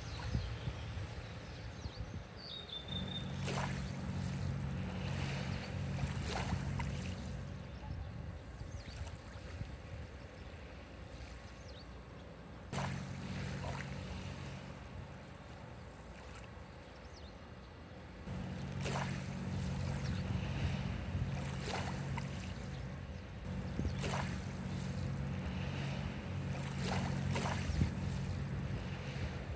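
Small waves washing onto a beach, surging in several swells of a few seconds each, with rumbling wind on the microphone and scattered short splashes or clicks.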